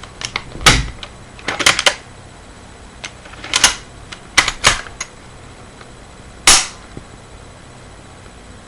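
Sharp metallic clicks and clacks of a Mosin-Nagant 91/30 rifle's bolt being cocked and the empty rifle dry-fired to test the reassembled bolt. They come in several short clusters, with one lone loud clack near the end.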